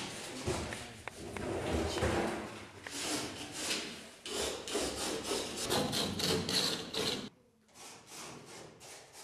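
A hand tool rubbing and scraping against a gypsum ceiling board overhead, in a quick series of strokes about two to three a second, which turn fainter about seven seconds in.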